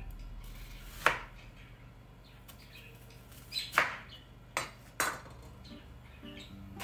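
Chef's knife slicing through an onion and striking a bamboo cutting board: a handful of sharp, irregular knocks.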